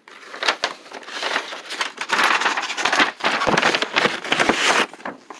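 Plastic packaging crinkling and crackling as it is handled and pulled open. The rustle builds over the first couple of seconds, is loudest through the middle, and stops near the end.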